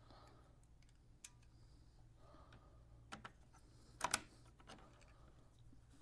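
Sparse small clicks and taps of a screw and fastener being handled and fitted to a motorcycle's body panel, the loudest pair about four seconds in, over a low steady hum.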